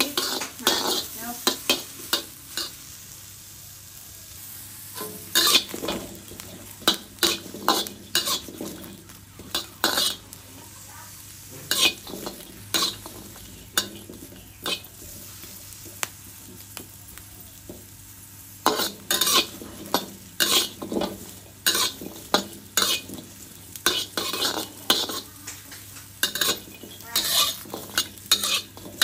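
Metal spatula scraping and tossing whole shallots, garlic cloves and chilies around a wok in quick, repeated strokes over a low sizzle. They are being dry-roasted until the skins char. The strokes pause for a few seconds midway, leaving only the sizzle.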